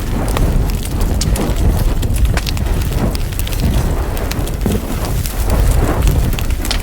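Wood fire burning in a fireplace, crackling with many sharp irregular snaps and pops over a steady low rumble.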